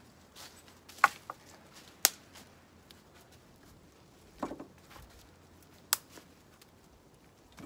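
Dry dead branches being handled, giving a few sharp cracks and knocks: about a second in, at two seconds and near six seconds. Footsteps rustle in dry fallen leaves around the middle.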